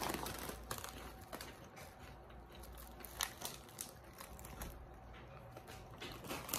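A snack bag crinkling as it is handled, with scattered small crackles.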